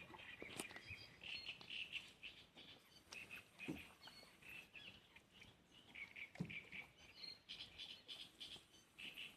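Faint birdsong: small birds chirping in quick repeated short notes, with a few soft low thumps.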